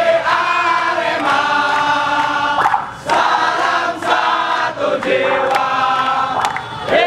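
A crowd of football supporters singing a chant together in unison, in held notes that break into phrases every second or two.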